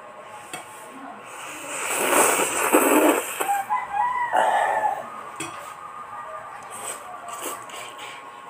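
A rooster crows once, starting about two seconds in and lasting about three seconds, loud and hoarse at first and ending in short pitched notes. Quieter slurping and chewing of noodles can be heard close by.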